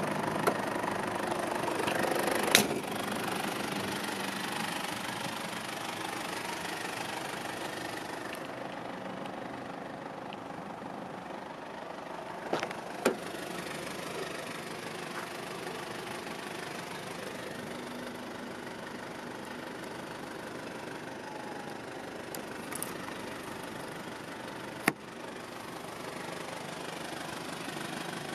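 The Mitsubishi Pajero's 2.8-litre turbo-diesel engine idling steadily, with a few sharp clicks on top. The loudest clicks come about two and a half seconds in and near the end.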